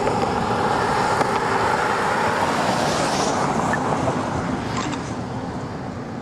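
Steady road vehicle noise, a car's engine and tyres, easing a little near the end.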